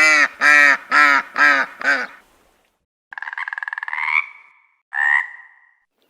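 Waterfowl honking: a quick run of five loud, nasal honks about half a second apart. After a short break, two buzzy, trilling calls from a different animal follow, the first longer and rising at its end.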